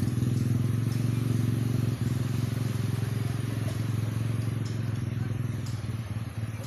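Jet ski engine running steadily at low speed, its level slowly dropping toward the end.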